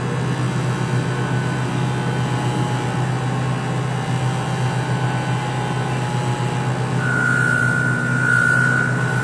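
Bench grinder motor running steadily with a low hum. About seven seconds in, a steady high whine joins as a round engine part is held against its wire wheel to clean off carbon.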